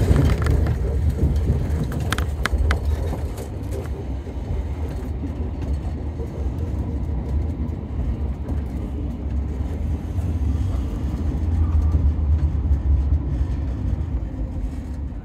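Narrow-gauge electric railcar running along the track, heard from inside the carriage as a steady low rumble, with a few sharp clicks in the first three seconds.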